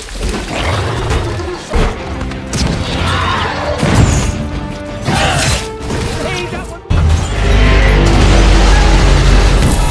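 Action-film sound mix: dramatic music with crashes and booms, broken by sudden cuts. An abrupt cut about seven seconds in leads into a loud, deep, sustained rumble.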